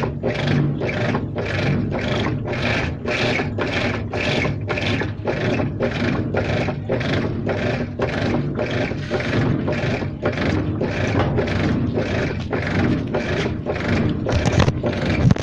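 Washing machine running, with a strange rhythmic scraping noise that repeats about twice a second over a steady hum, growing louder near the end.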